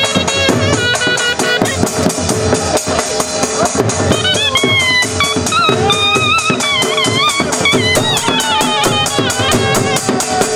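Jhumar folk dance music: a fast, even drum beat with an ornamented high melody line wavering over it.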